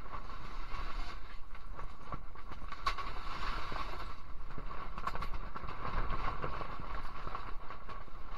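Wind buffeting a pop-up ice fishing shelter: a steady, uneven rumble, with scattered small clicks from a spinning reel being handled.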